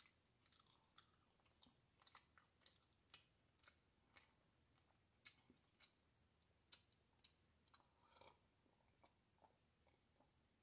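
Faint swallowing gulps and wet mouth clicks from someone drinking water out of a glass mug, coming irregularly about every half second.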